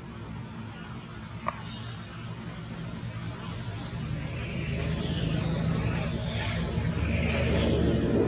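A motor vehicle's engine hum that grows steadily louder over several seconds, as if approaching. A single sharp click about one and a half seconds in.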